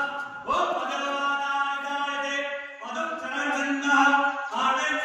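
Devotional Hindu chant sung on long held notes, in phrases that begin afresh about every two seconds.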